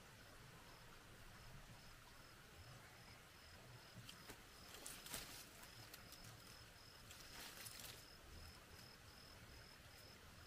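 Faint cricket chirping steadily, about three chirps a second, with a few brief rustles about four to five seconds in and again near eight seconds.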